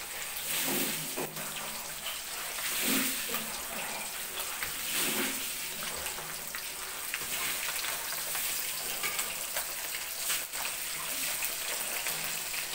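Small whole fish deep-frying in a wok of hot oil: a steady sizzling crackle.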